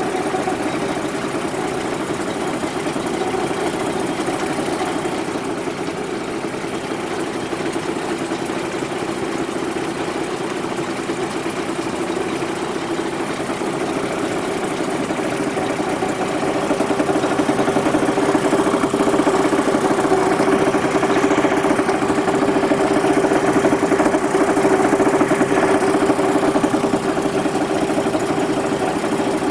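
LPG-converted car engine idling, with a steady hum coming from the gas pipe between the LPG lock-off valve and the converter, a vibration that can be felt on the pipe. The hum grows louder a little past halfway.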